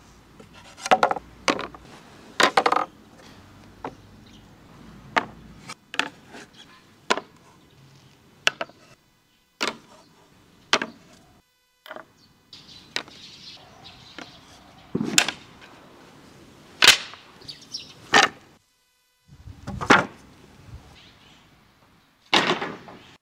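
Planed wooden boards and panels being set down and stacked, knocking against each other in a long series of sharp wooden clacks at irregular intervals.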